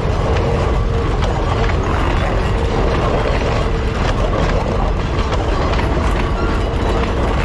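Heritage train hauled by locomotives W945 and F40 running along the line: a steady, loud rumble from the locomotives and wheels on the rails, with scattered rail clicks and a steady tone.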